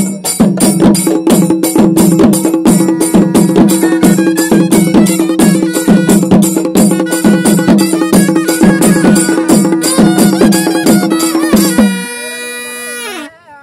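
Traditional South Indian festival music: a drum beaten in a quick, even rhythm, several strokes a second, over a steady held tone. About twelve seconds in the drumming stops, and a held chord lingers with its pitches sliding downward before it cuts off.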